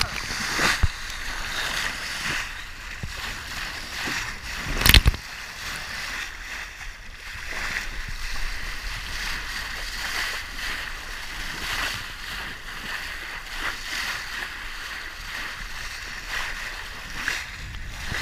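Water rushing and sloshing past a sailboat's hull under way, with a few sharp splashes, the loudest about five seconds in.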